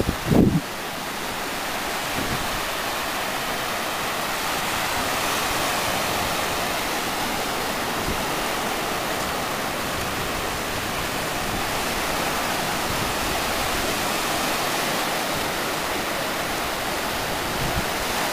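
Steady rushing of sea surf breaking on a sandy beach, mixed with wind on the microphone, with one brief low thump at the very start.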